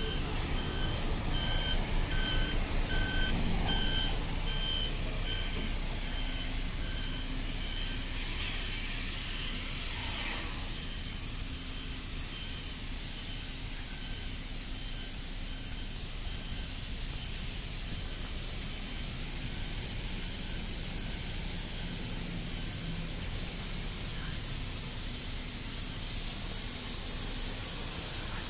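City street traffic ambience: vehicle engines running, with a steady high hiss. A repeating electronic beep sounds for the first several seconds, then stops.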